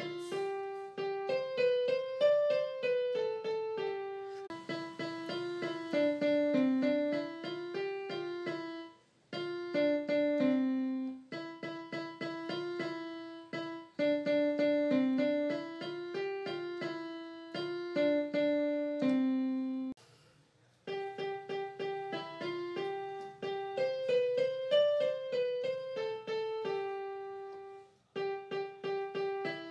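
Background music: a light keyboard tune of single notes in short phrases, with brief breaks between them and the opening phrase coming round again near the end.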